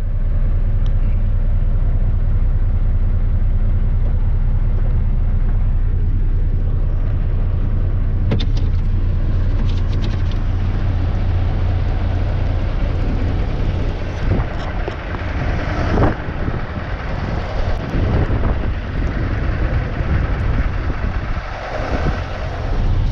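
Semi truck's diesel engine and road noise inside the cab while driving, a steady low drone. About two-thirds of the way through it turns rougher and more uneven, with a few sharp clicks.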